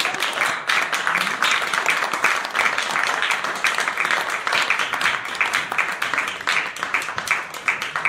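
Audience applauding: dense clapping that thins out near the end into fewer, separate claps.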